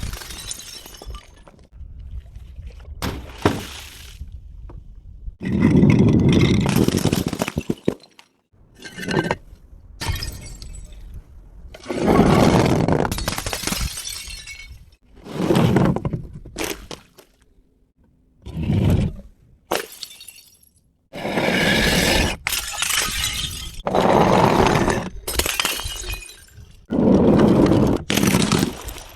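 Glass bottles smashing one after another: about a dozen separate breaks, some short and sharp, others trailing on for a second or two as the glass shatters and scatters.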